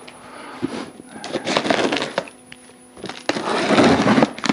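Large cardboard box being opened by hand: cardboard crackling and scraping in two stretches, with a few sharp clicks.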